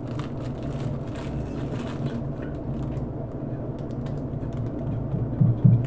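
Crinkling and light clicking of a clear plastic bag as a packaged pillowcase blank is handled and smoothed on a desk, mostly in the first couple of seconds, over a steady low hum.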